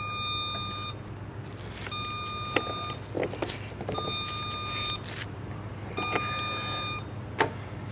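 Electronic refrigerant leak detector with a heated sensing tip, beeping while it probes A/C lines. A steady mid-pitched tone about a second long repeats four times, about every two seconds, with a couple of sharp knocks between.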